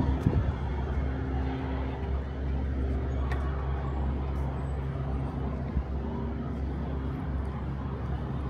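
Steady low drone of motor vehicles, with a held engine-like hum over a wash of traffic noise.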